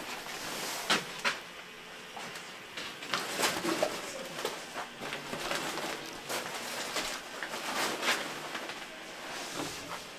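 Rustling and scuffing of heavy protective suits and gear as people move about a small room, with scattered sharp knocks and clicks.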